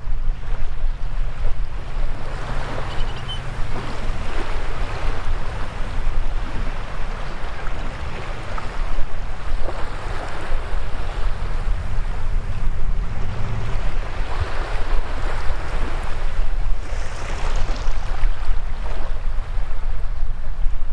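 Shallow waves washing up and draining back over wet sand at the water's edge, the hiss of each wash swelling and fading every few seconds, over a steady low rumble of wind on the microphone.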